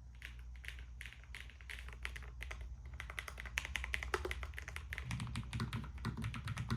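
LOFREE Flow low-profile mechanical keyboard being typed on at a steady pace, a quick run of soft keystroke clicks, several a second; really quiet for a mechanical keyboard.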